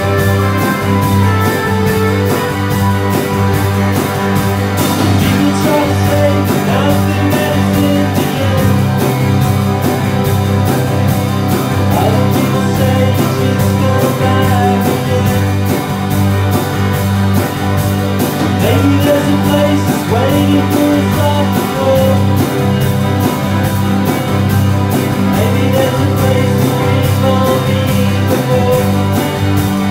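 Live rock band playing a song: electric guitar and bass guitar over a drum kit keeping a steady beat.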